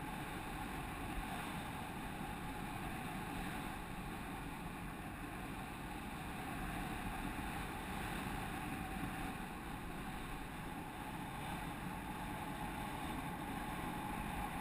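Steady rush of wind over the camera of a paraglider on a winch tow, with a faint steady tone running through it.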